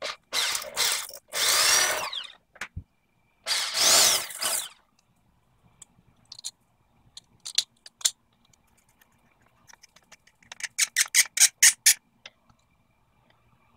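Cordless drill boring into the grout between ceramic wall tiles in two bursts, the first about two seconds long at the start, the second about a second long some four seconds in. Near the end, a quick run of about ten sharp clicks as a screw is driven by hand through a plastic bracket.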